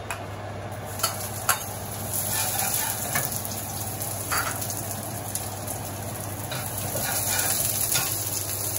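Sliced shallots and ginger sizzling in hot oil in a wok while a slotted metal spatula stirs them. A few sharp metal clicks come in the first couple of seconds as the spatula scrapes them from the bowl and knocks the pan. The sizzle grows louder about two seconds in.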